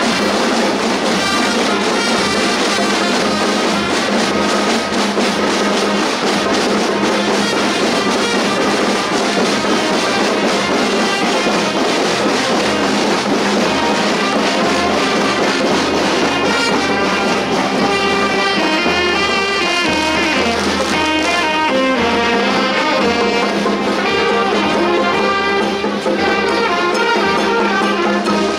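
Marching band playing a tune on saxophones, trombones and trumpets over a bass drum, loud and continuous.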